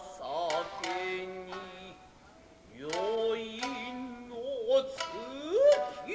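Nagauta music: a singer's drawn-out vocal line that wavers and glides in pitch, with sharp, spaced shamisen plucks. The singing thins out briefly in the middle.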